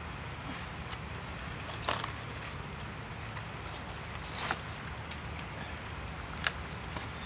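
Steady forest ambience with a constant high insect drone, broken by three short sharp crackles about two seconds apart, from handling leaves and food over dry leaf litter.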